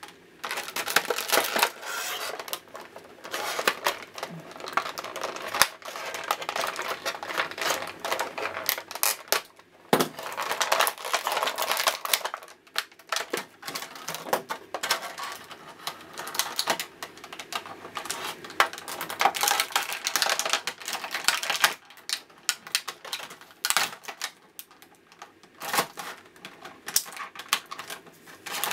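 Clear plastic toy packaging crinkling and crackling as it is handled, pulled apart and cut with scissors, in irregular stretches with short pauses.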